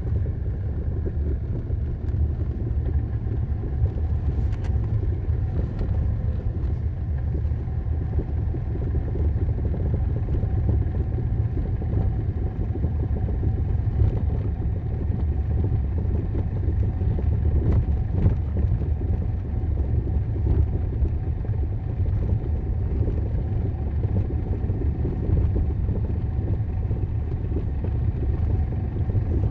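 Hyundai Sonata EF driving, with a steady low road and tyre rumble and a few faint sharp knocks scattered through it. The knocks come from the front suspension, which has a knock fault.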